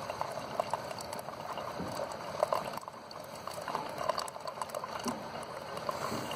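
Keurig K70 brewing: a steady stream of coffee pouring from the spout into a mug, with good flow from its new air pump and solenoid.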